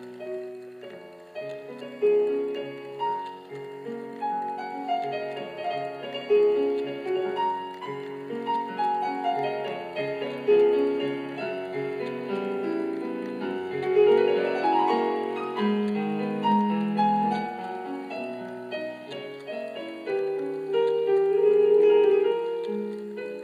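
Background piano music in a classical style: flowing melodic lines over a lower accompaniment, with a quick rising run of notes about halfway through.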